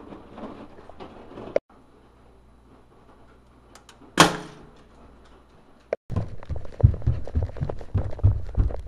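One loud, sharp slam with a short ringing decay, in an otherwise quiet room. It is followed by a fast, irregular run of low thuds and taps.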